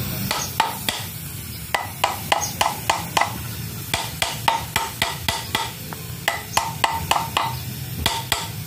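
Hammer blows on the rusted impeller of an Alkon irrigation water pump: sharp metallic clanks in quick runs of three to seven strikes, about three or four a second, with short pauses between runs, to knock loose an impeller seized on its rusted shaft. A steady low hum runs underneath.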